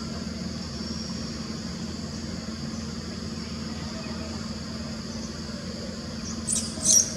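Two short, high-pitched animal squeaks near the end, the second louder, over a steady low hum and high hiss of outdoor background.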